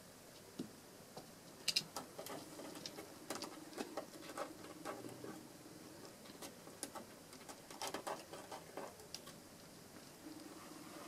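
A kitten's paws and claws scratching and tapping on carpet and against a wooden door as it pounces and paws at it: a run of irregular light scrapes and clicks.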